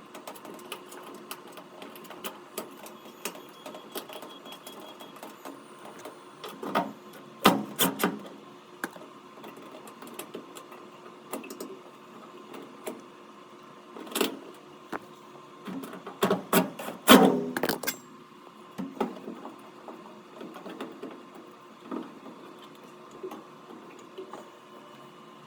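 Scattered clicks, scrapes and knocks of hands and a screwdriver working metal parts at a dryer's terminal block, fastening the new power cord's wires. A few louder clusters of knocks stand out, over a faint steady hum.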